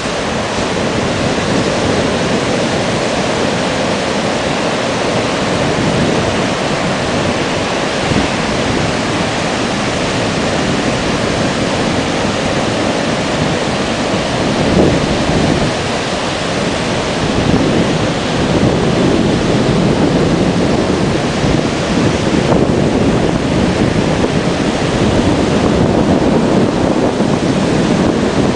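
Sea surf washing in a loud, steady rush, with wind buffeting the microphone; the surge swells a little past the middle and again near the end.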